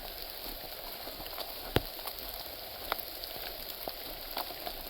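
Rain falling steadily, an even hiss with a few sharp separate ticks, the loudest a little under two seconds in.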